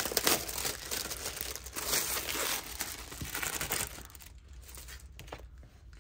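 Packaging crinkling and rustling as a new planner cover is unwrapped and handled, busy for the first few seconds, then fainter and sparser.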